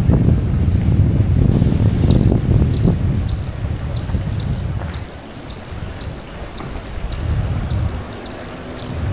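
An insect chirping in short, high-pitched chirps about twice a second, starting about two seconds in, over wind rumbling on the microphone that fades away.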